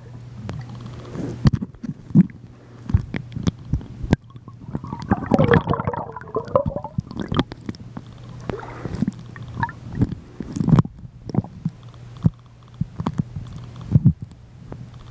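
Muffled underwater sound of a swimming pool: gurgling and bubbling with scattered knocks and clicks, and a denser burst of bubbles about five to seven seconds in, over a steady low hum.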